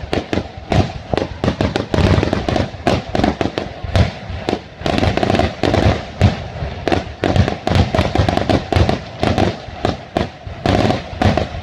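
Fireworks finale barrage: a rapid, continuous volley of overlapping aerial shell bursts and bangs, several a second, loud throughout.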